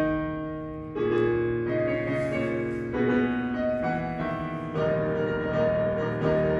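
Piano music: a new chord is struck every second or two, each note ringing on and fading until the next.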